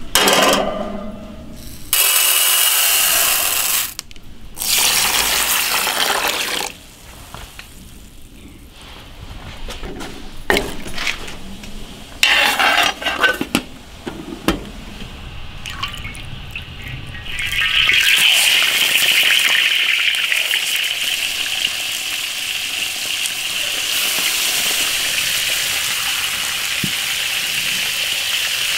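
Short, uneven bursts of water pouring and splashing, then about 18 seconds in a sudden steady sizzle of whole crucian carp frying in hot oil in an iron wok.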